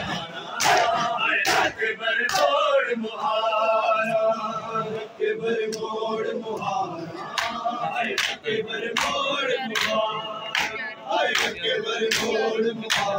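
A crowd of men chanting a Muharram lament in unison, cut by sharp chest-beating (matam) slaps about once or twice a second. The slaps thin out in the middle and pick up again in the second half.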